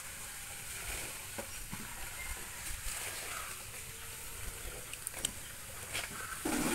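Chopped meat sizzling in a black pot over an open wood fire, a steady hiss with a few faint crackles from the fire.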